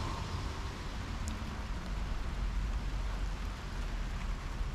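Steady rain falling on a wet garden table and plants, a continuous even patter with a few single drops ticking out, over a low rumble.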